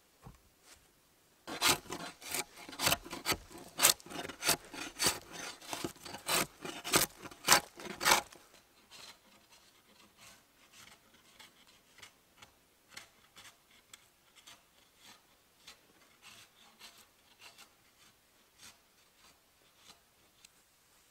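Bark being stripped from a log with a blade: quick scraping strokes on the wood, about three a second, loud for the first several seconds and then fainter.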